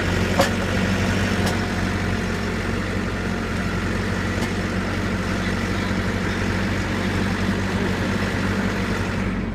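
Backhoe's diesel engine running steadily, with a single short knock about half a second in.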